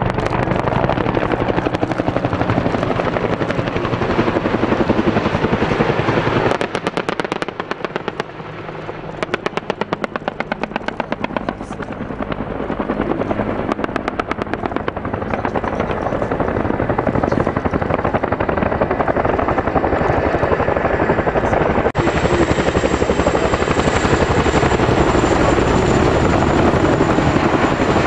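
Military helicopters flying low past, with a steady chop of rotor blades and engine noise. The noise thins for a few seconds, leaving clear blade pulses, then builds back up. From about two-thirds of the way in a high whine joins the beat as a CH-47 Chinook's tandem rotors come close.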